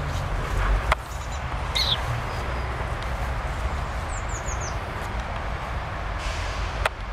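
Outdoor ambience: a steady background hiss with low rumble. Over it, a bird gives a short high chirp about two seconds in and a quick run of four high, falling chirps about four seconds in. Two sharp clicks come near the start and near the end.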